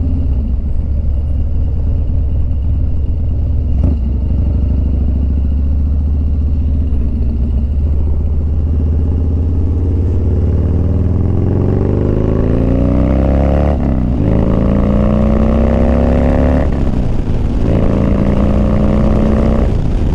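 A 2003 Harley-Davidson Dyna's V-twin engine on the move, running steadily at first, then accelerating from about ten seconds in with its pitch climbing. The climb breaks off twice, at about 14 and 17 seconds, for upshifts on the way up to about 70 mph.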